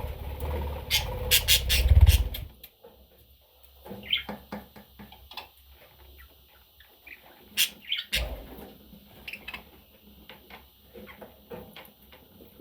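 Budgerigar chirping in short, high calls, with many small clicks and ticks in between. A low rumbling noise runs under the chirps for about the first two seconds.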